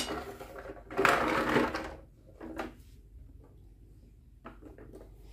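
Plastic toy train being handled on a tile floor: a sharp knock at the start, a short scraping, rattling clatter about a second in, a smaller one a moment later, then a few faint clicks.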